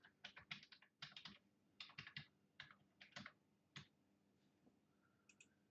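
Faint typing on a computer keyboard: a run of quick keystrokes for about four seconds, then a pause and two quick clicks near the end.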